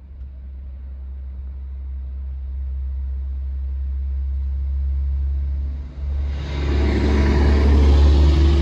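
A coal truck, a semi tractor pulling a dump trailer, approaching and passing on the road. Its low engine rumble grows steadily louder, dips briefly, then swells with engine and tyre noise and is loudest near the end.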